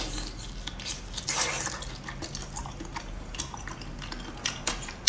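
Wet sucking and slurping as the meat of cat's eye snails (turban snails) is drawn from the shell by mouth, with small clicks of shell. A louder wet slurp comes about a second and a half in, and a few sharp clicks come near the end.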